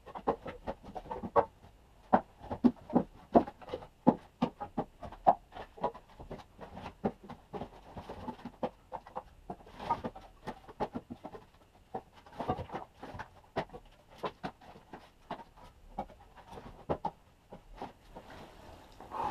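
Pieces of split birch firewood clacking against each other as they are taken from a loose pile and stacked by hand: an irregular run of wooden knocks, several a second.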